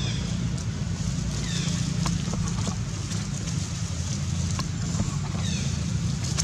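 Outdoor ambience: a steady low rumble, with a few runs of quick high falling chirps and some faint clicks.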